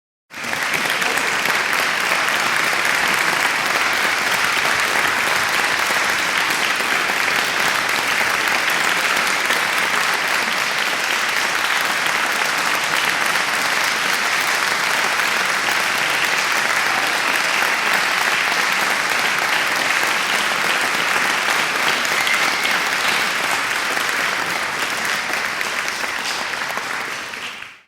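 Large crowd applauding steadily, a dense wash of many hands clapping that starts abruptly and fades away near the end.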